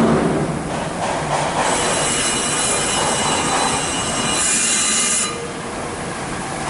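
Techduc BL1-H brake lathe turning a brake drum while the cutting bit is hand-fed across it: a steady metallic squeal, with several high whining tones over the machine's running noise. A sharper, higher screech sounds from about four and a half seconds in until just past five seconds, then the sound eases slightly.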